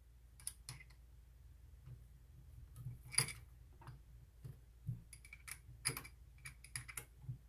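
Scattered light metallic clicks and taps as hands handle and adjust the compound rest and tool post of a 7x14 mini lathe. The loudest tap comes about three seconds in.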